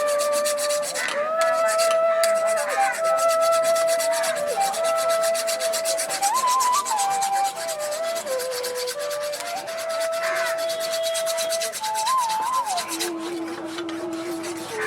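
Steel file rasping rapidly back and forth on a freshly forged weeder blade, sharpening its edge. Under it run thin steady tones that change pitch in steps.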